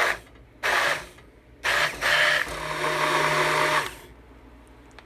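Immersion blender pureeing cooked strawberries, run in three goes: two short pulses, then a longer run of about two seconds with the motor at a steady pitch.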